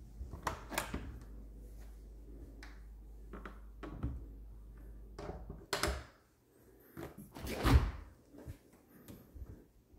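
Stainless side-by-side refrigerator being handled: a series of clicks and thunks as the small door-in-door compartment flap and the main door are opened and closed. The loudest thunk comes about three-quarters of the way through, and a low hum under the first part stops about six seconds in.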